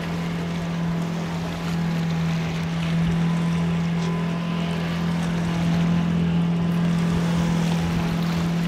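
Boom boat's engine running steadily at one unchanging pitch, a constant drone over a hiss of wind and water.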